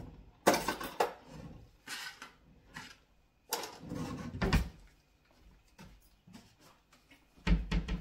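Kitchen drawers sliding and bumping shut, with a metal utensil clattering into the cutlery tray. There are several separate knocks: a sharp one about half a second in, and dull heavy thuds around four and a half seconds and near the end.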